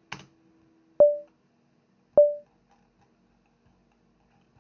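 Two short computer alert pings about a second apart, each a sharp mid-pitched tone that dies away quickly, after a brief click right at the start.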